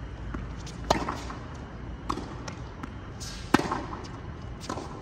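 Tennis rally on a hard court: rackets striking the ball, with two loud cracks about two and a half seconds apart and fainter hits and bounces in between.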